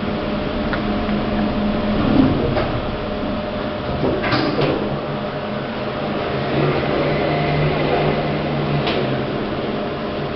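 Steady electrical hum inside a lift car, with a few light clicks and knocks. A second, lower hum comes in about four seconds in and fades near the end.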